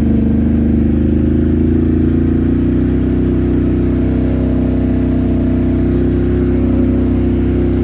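ATV engine running steadily at a constant pace while the quad wades through flood water.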